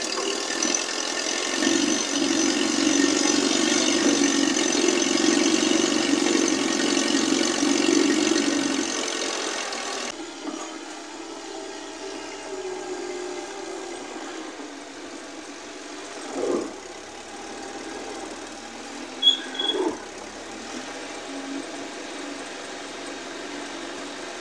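Engine of a 1946 Conveyancer forklift running, louder for the first ten seconds while its control levers are worked, then running more quietly as it drives up, with a few dull knocks.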